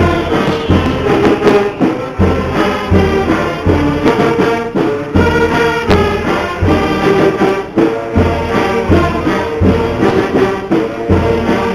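Music with a steady beat and a melody over it.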